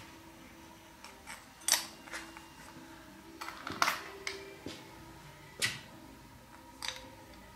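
Irregular sharp clicks and knocks, about six, of a wooden salt mill being handled and assembled: its metal shaft and grinder parts tapping against the wood, over a faint steady hum.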